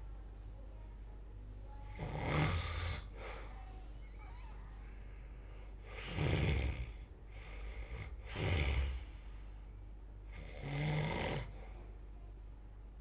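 A person snoring: four loud, rasping snores a few seconds apart, over a steady low hum.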